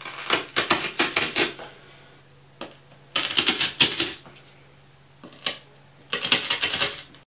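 Three short bursts of rapid clicking and rattling as Sigma makeup brushes are handled, their handles knocking together, and pushed into a styrofoam block.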